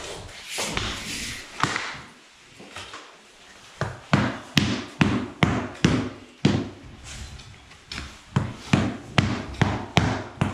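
Rubber mallet knocking ash-veneered engineered wood flooring planks down into trowelled adhesive, a run of sharp knocks about two to three a second from about four seconds in.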